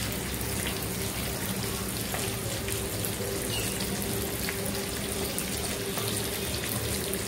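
Tomato-onion curry masala sizzling and bubbling in a pot while a steel spoon stirs it, with light scraping ticks and a faint steady hum underneath.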